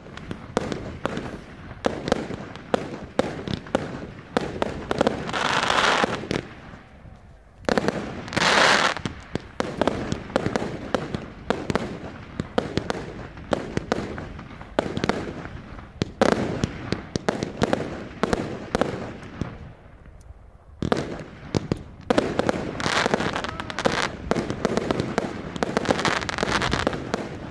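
Aerial fireworks going off in quick succession: many sharp bangs and pops from bursting shells, with denser spells of hissing crackle about five and eight seconds in and again over the last few seconds.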